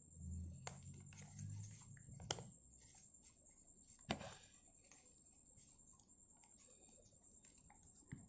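Near silence with faint crinkling and a few sharp clicks of a paper sheet being folded and tucked by hand, the loudest a little past two seconds and again about four seconds in.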